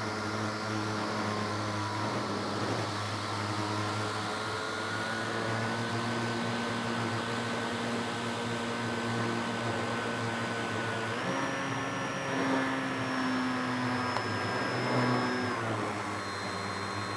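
RC model airplane's motor and propeller running in flight, picked up by the onboard camera: a steady drone that steps up in pitch about eleven seconds in and drops back about four seconds later as the throttle changes.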